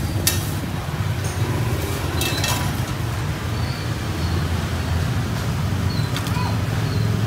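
Steady low background hum of a busy street-market stall, with a few short clicks and clinks as bread and utensils are handled, the sharpest about a third of a second in and around two and a half seconds in.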